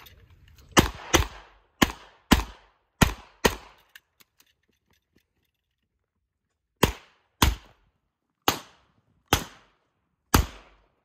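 Handgun fired in a rapid string: three quick pairs of shots in the first few seconds, a pause of about three seconds, then about six more shots, each with a short echo.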